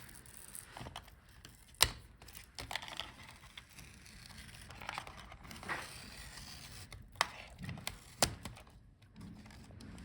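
Small clicks, taps and scraping from tools and laptop parts being handled during disassembly, with a few sharp clicks about two seconds in and again around seven and eight seconds.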